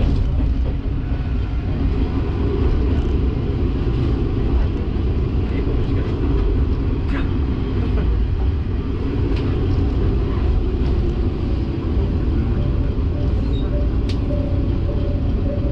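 Diesel railcar running along the line, heard from on board: a steady low engine and wheel-on-rail rumble with a few sharp clicks. A faint steady tone comes in near the end.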